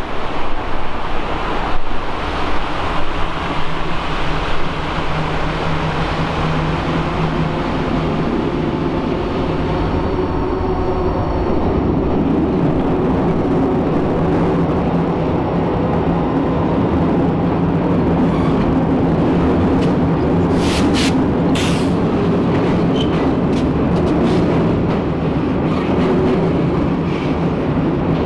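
Train crossing a steel railway bridge overhead, a steady loud rumble of wheels on the rails that builds slightly after the first few seconds. A few short, sharp high-pitched sounds come about two-thirds of the way through.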